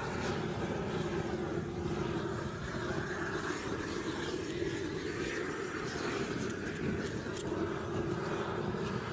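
Gas blowtorch flame burning steadily as it singes cow's hooves.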